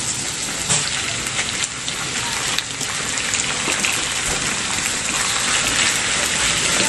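Raw squid pieces sizzling and crackling as they hit hot oil with sautéed garlic and onions in a frying pan. A spatula stirs them toward the end.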